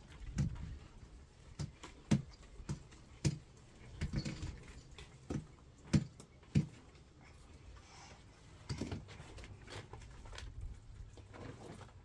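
Irregular sharp knocks and taps, about ten of them, most in the first seven seconds, from hollow clay bricks and stones being handled and set on a mud-mortared wall.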